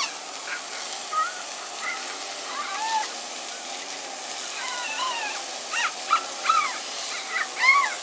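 Smooth-coated otters chirping and squeaking: many short, high calls, growing louder and denser in the last few seconds, over a steady background hiss.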